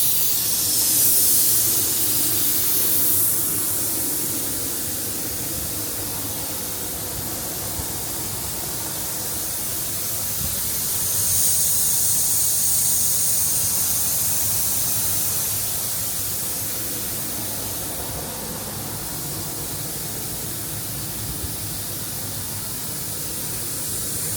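Ingersoll Rand SSR-EP60 60 hp rotary screw air compressor running, a steady hum under a loud rushing hiss of air that swells near the start and again about halfway through.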